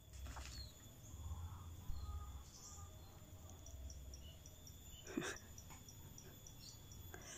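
Faint outdoor garden ambience: insects with a steady high buzz and a run of short, evenly spaced high chirps, and one brief louder animal call about five seconds in, over a low intermittent rumble.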